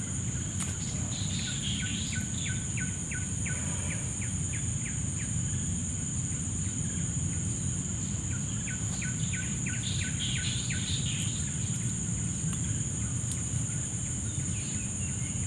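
Outdoor ambience of insects droning steadily at a high pitch, with two runs of short, quick chirps, about five a second, each lasting a few seconds, over a steady low rumble.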